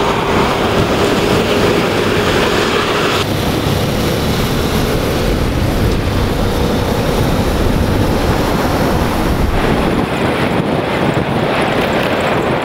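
Steady vehicle running and road noise from travel on a rough gravel track, with wind buffeting the microphone. A steady drone runs through the first three seconds, and the sound changes abruptly about three seconds in and again near ten seconds.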